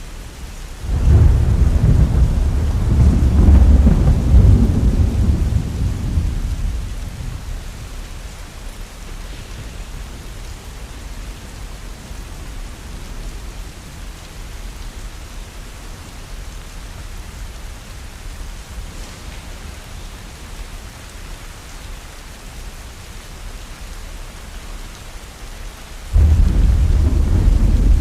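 Steady rain with two deep rolls of thunder: one starts about a second in and fades away over several seconds, and another breaks in suddenly near the end.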